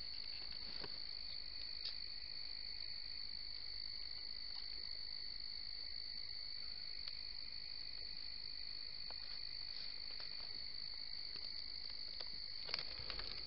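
Steady night chorus of insects in summer woods: a continuous high trill, joined about a second in by a lower steady drone that drops out shortly before the end. A brief sharp click near the end.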